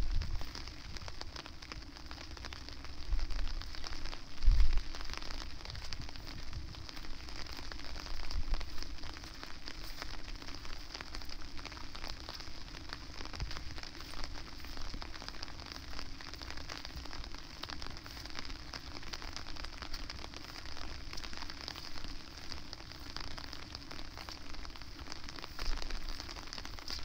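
Steady rain falling, a dense haze of small drop ticks, with a few low rumbles of wind on the microphone, the strongest about four and a half seconds in.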